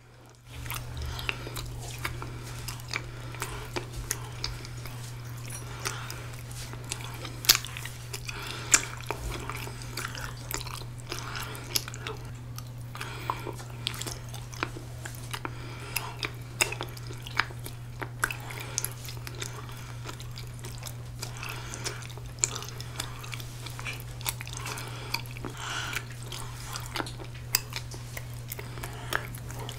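Close-miked chewing of chewy ramie-leaf rice cake (mosi-tteok): wet mouth sounds with many small clicks, a couple of them louder about eight seconds in. A steady low hum runs underneath.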